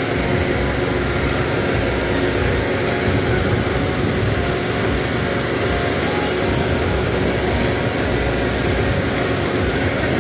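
John Deere tractor's diesel engine running steadily under way on the road, heard from the driver's seat.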